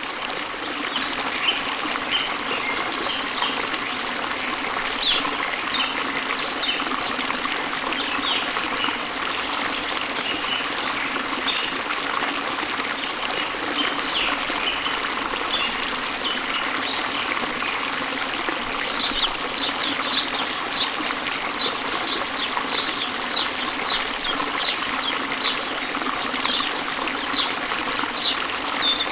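Running water, a steady rushing stream, with small birds chirping over it. From about two-thirds of the way through, one bird repeats a sharp high chirp about twice a second.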